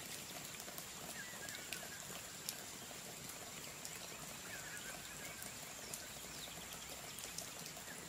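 Bread cubes toasting in a nonstick frying pan: a steady crackling hiss with scattered light ticks.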